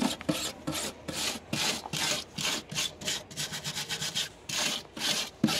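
Hand tool scraping back and forth along a van's sheet-metal door-sill channel, in quick rasping strokes about three a second, working loose hardened dirt and rust caked under a removed door seal.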